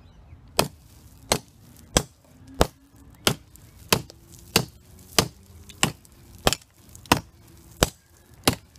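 Gerber Bear Grylls hatchet chopping into a dry wooden root, about thirteen sharp strikes at an even pace of roughly three every two seconds, cutting straight through the root.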